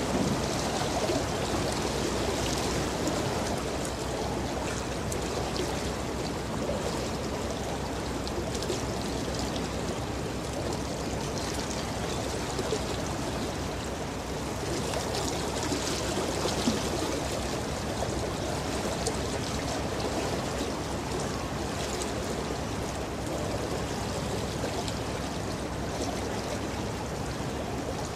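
Steady rush of moving water: the wash of a passing container ship's bow wave and wake on the river.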